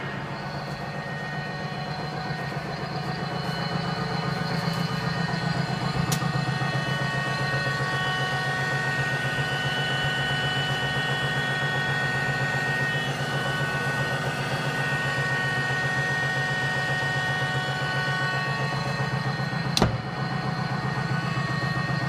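Lorenz SN4 gear shaping machine running: a steady mechanical hum with several high whining tones, growing louder over the first few seconds. A faint click comes about six seconds in, and a sharper knock near the end.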